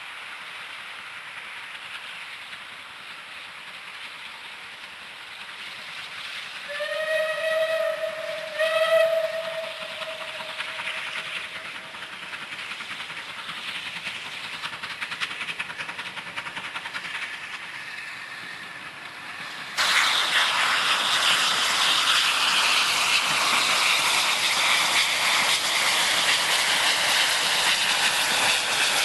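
Bulleid West Country class pacific 21C123 Blackmoor Vale working hard, its steam exhaust hissing steadily. It sounds two whistle blasts about seven and nine seconds in. About twenty seconds in the sound jumps abruptly to much louder exhaust and wheel noise as the engine passes close by.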